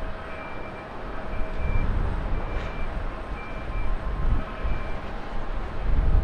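Boeing 777-300 airliner's jet engines giving a steady rushing rumble as it rolls out along the runway after landing, swelling again near the end, with a faint high whine that comes and goes.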